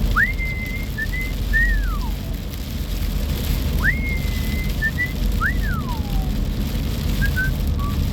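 A person whistling a tune in two phrases, each swooping up to a held high note and then sliding down, followed by a run of short notes near the end. Under it is a steady low rumble of storm wind on the microphone.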